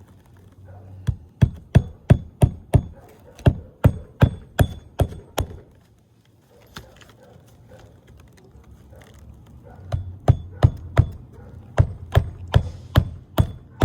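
Hammer driving roofing nails into an asphalt shingle: two runs of quick, sharp blows with a short metallic ring, about three a second, separated by a pause of several seconds.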